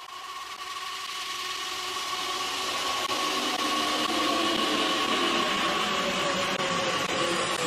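A whooshing electronic drone fading in and building slowly, with a steady tone held underneath.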